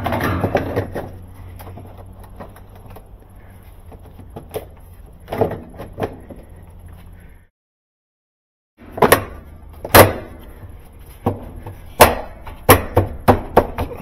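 Plastic tub ring of a Kenmore top-load washer being fitted back onto the outer tub: a clatter at first and a few knocks, then, after a short silent gap, a run of sharp knocks and snaps as it is pressed home.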